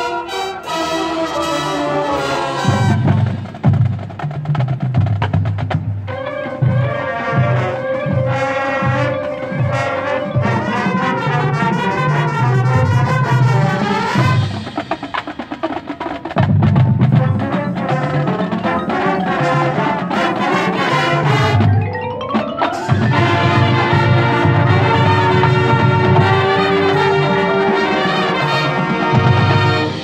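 Marching band playing its field show: a brass section over marching drums, with the front ensemble's marimbas and other mallet keyboards. A rising swell sweeps up about two-thirds of the way through, and the music cuts off just before the end.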